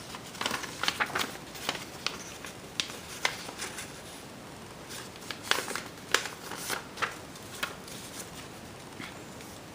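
Paper being handled at close range: scattered short rustles and clicks, irregular and a few per second, as the paper parts of a homemade pistol are worked.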